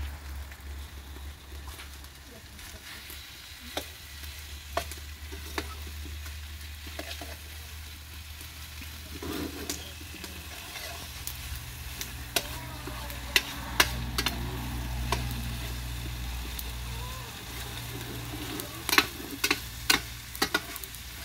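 Chopped onion, celery, chile, bell pepper and tomato sautéing in margarine in a frying pan over a wood fire, a steady sizzle, stirred with a metal spoon. The spoon clinks and scrapes on the pan a few times, in a cluster about 13 seconds in and again near the end.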